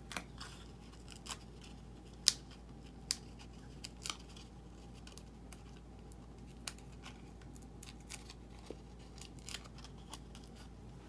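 Short crisp clicks and ticks of foam adhesive dimensionals being peeled from their backing sheet and pressed onto a die-cut cardstock piece. The sharpest click comes a little over two seconds in, with a few lighter ones after it.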